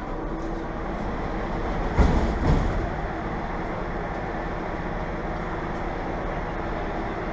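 Subway car sliding doors opening at a station stop, two loud knocks about half a second apart, about two seconds in. The train's steady hum runs underneath, heard from inside the car.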